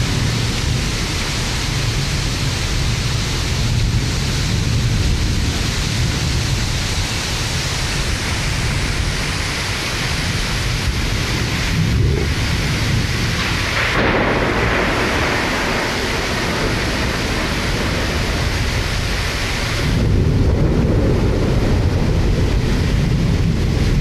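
Heavy thunderstorm: a steady downpour of rain with a low rumble of thunder underneath. The rain's hiss shifts about halfway through and grows louder near the end.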